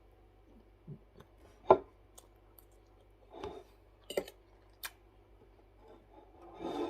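Eating sounds while eating raw fish by hand from a dish: a handful of separate light clicks and knocks, the sharpest about two seconds in, with a softer cluster near the end.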